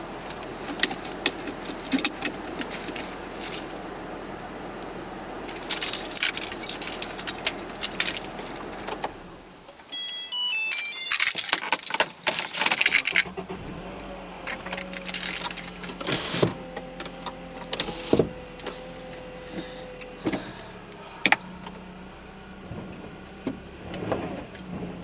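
Car keys jangling and clicking inside a car, then about ten seconds in a short run of beeps and the car's engine starts and settles into a steady idle hum, with more clicks and rattles over it.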